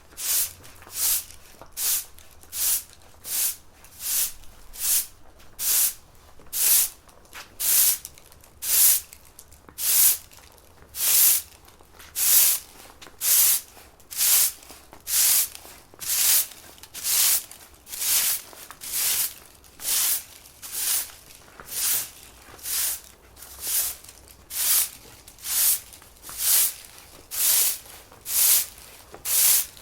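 Broom sweeping a floor in steady, even strokes, about one and a half a second, each stroke a short swish.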